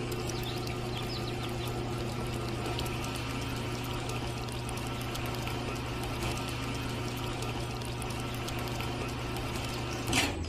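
Small electric motor of a miniature toy cement mixer running steadily with a constant hum, its drum turning wet cement mix with a watery churning sound.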